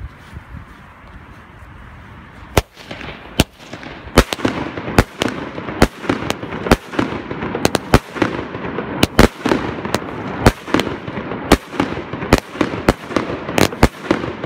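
Salute firework battery firing: after a couple of seconds of faint hiss, shots launch and burst overhead as sharp, loud bangs that come faster and faster, about two a second near the end, with a steady rushing noise between them.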